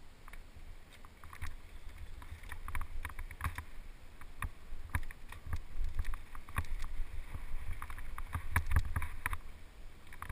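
Mountain bike riding down a rough dirt trail: a steady rumble of wind on the microphone, with irregular clicks, knocks and rattles from the bike and tyres over rocks and roots, busier and louder in the second half.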